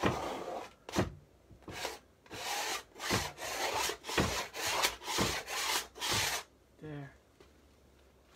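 A 3-inch blade scraping across dry paint on a stretched canvas, about a dozen quick rasping strokes in a row. The scraping takes off the top layers so the underpainting shows through, and stops a little over six seconds in.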